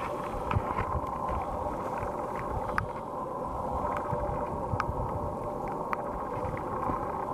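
Enclosed site generator running with a steady engine hum, with a few light clicks scattered over it.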